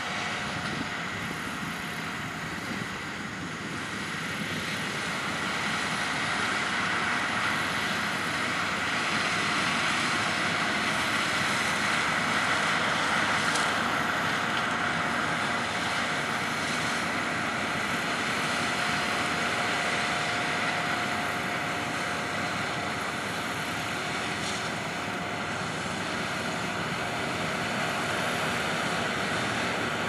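Oxbo Pixall seed corn harvester picking corn with a tractor running alongside: a steady drone of engines and machinery with a faint steady whine, growing a little louder a few seconds in.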